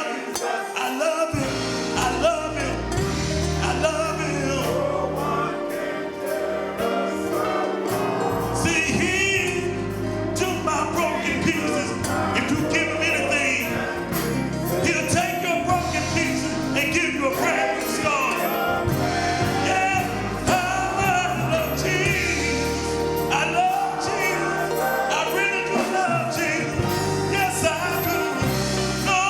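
Gospel music with a choir singing over instrumental accompaniment with a steady bass.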